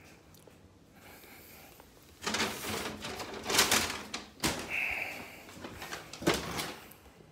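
Brown paper takeaway bag rustling and crinkling in irregular bursts as a hand opens it and reaches inside, starting about two seconds in.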